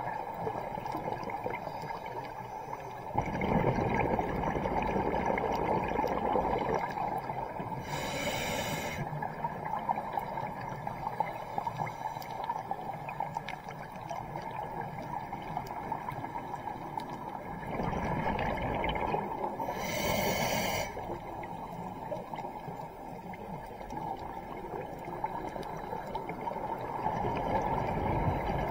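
Scuba diver breathing through a regulator, heard muffled underwater. Twice, a long bubbling exhalation is followed by a short hiss of inhaled air, about 8 and 20 seconds in.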